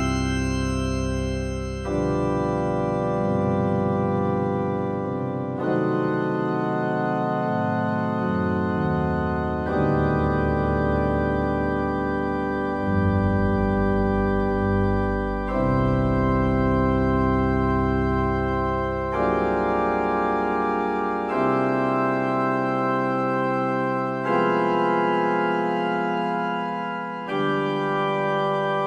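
Electronic organ playing an improvised piece in slow, sustained chords over held bass notes, the harmony moving every two to four seconds.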